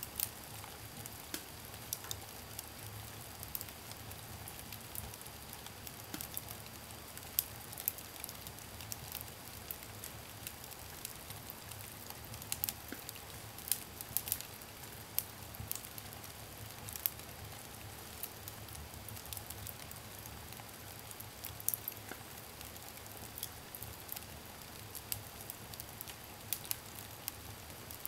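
Wood fire burning in a sauna stove's firebox: irregular sharp crackles and pops from the burning logs, with a steady low hum underneath.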